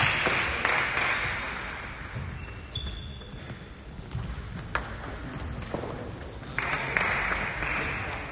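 Table tennis balls ticking off bats and tables in a sports hall: a few sharp, separate clicks, with two short high squeaks around the middle and bursts of hall noise near the start and near the end.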